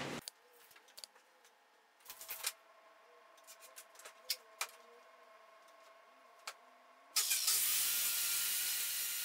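Light clicks and knocks as a speed square and saw are set on a redwood fence board. Then, about seven seconds in, an electric circular saw starts suddenly and runs loud and steady into the crosscut.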